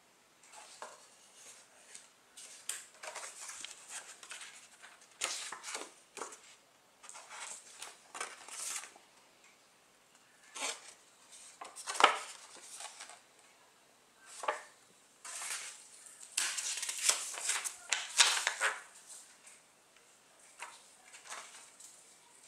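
Paper rustling as a printed leaflet, a booklet and sticker sheets are leafed through and handled on a table, in irregular bursts with a sharp tap about halfway through.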